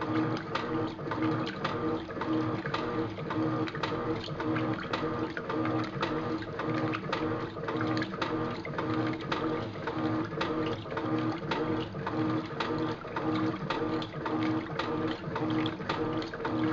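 Electrolux top-loading washing machine agitating in its wash cycle: a steady motor hum with rapid, regular knocking. The owner says the machine's bearings are blown.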